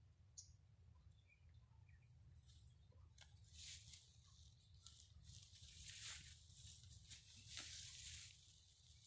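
Faint rustling of leaves and brush, coming in several swells of soft hiss from about two seconds in, with a few light clicks.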